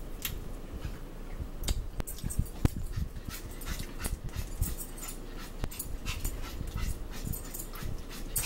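Wet, sticky chewing and lip-smacking from someone eating a peanut butter and jelly sandwich: irregular mouth clicks and smacks.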